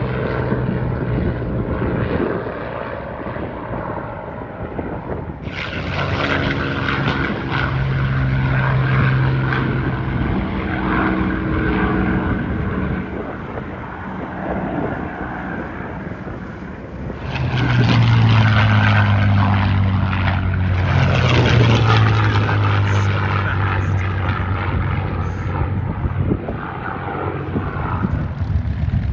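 P-51 Mustangs flying past, the drone of their V-12 piston engines and propellers. The sound swells about a fifth of the way in, then grows loudest about two-thirds in, where the engine note falls in pitch as one passes by.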